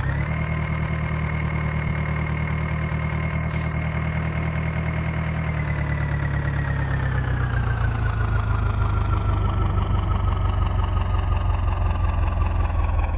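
Diesel engine of a tractor or backhoe running steadily. Its pitch comes back up from a dip at the very start, holds level for about five seconds, then slowly falls as the engine slows.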